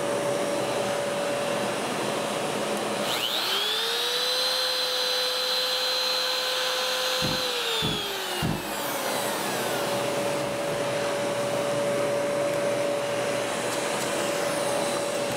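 Shop dust extractor running steadily. About three seconds in, a handheld router is switched on and whines up to speed. It runs for about four seconds, then winds down, with a few low knocks as it slows.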